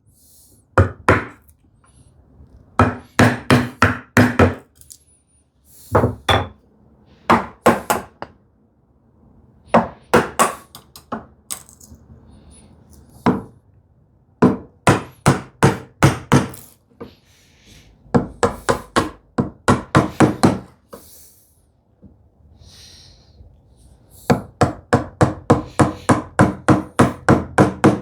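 Wooden mallet striking a chisel into hardwood in quick bursts of sharp knocks, about three or four blows a second with short pauses between bursts, chopping out dovetail waste.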